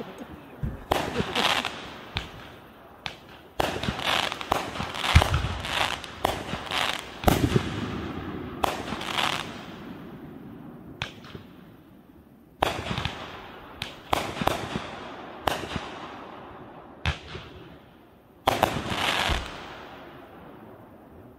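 Consumer aerial fireworks going off in irregular volleys of sharp bangs, each followed by a crackling, echoing tail, with a short lull in the middle and one last loud burst near the end.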